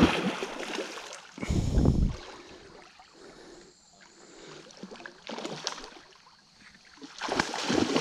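Water splashing and sloshing in uneven bursts, with a louder surge about a second and a half in and again near the end.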